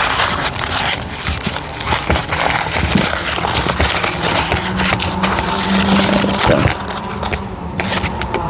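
Paper and plastic packaging being handled and unwrapped, with a dense, irregular rustling and crinkling.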